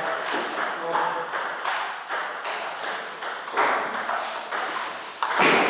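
A table tennis rally: the celluloid-type ball clicking sharply off bats and the table in quick succession. A louder burst of noise comes near the end.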